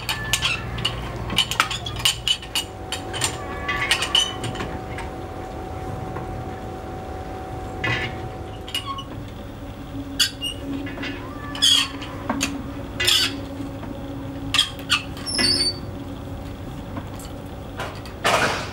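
Hand-cranked geared winch of a manually operated railway level-crossing barrier being turned, its metal gears and crank clinking and clicking irregularly.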